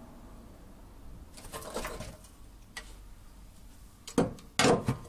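Scraping, then sharp metal knocks and clatter as the Ford Ka's rear axle beam is worked loose on the trolley jack, the loudest knocks near the end.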